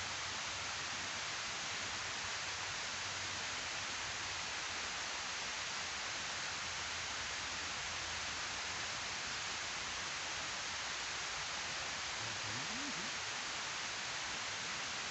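Water pouring down a concrete weir spillway into the pool below, a steady rush of white noise.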